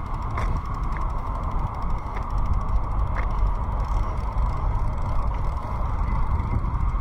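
Bicycle riding on a paved path: steady tyre and drivetrain noise over a low rumble, with a few light clicks in the first half.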